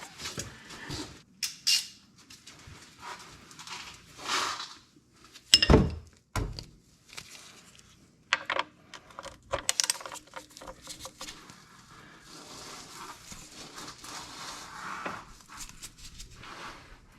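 Metal hand tools clinking and knocking against a tractor's oil drain plug as it is worked loose. The plug is seized tight and won't budge. There is one heavy knock about six seconds in, a burst of clicks a few seconds later, then soft rustling.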